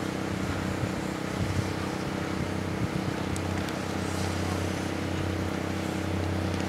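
Steady low mechanical hum with a constant pitch, under an even outdoor hiss.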